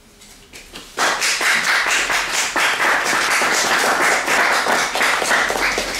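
Audience applauding: many hands clapping, starting suddenly about a second in and keeping up steadily.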